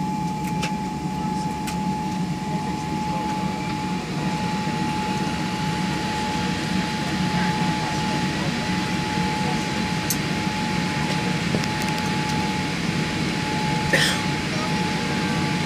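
Steady drone of a Boeing 787-8 heard inside the cabin: a low hum under one constant whine, with no rise or fall in pitch. A brief rattle sounds about fourteen seconds in.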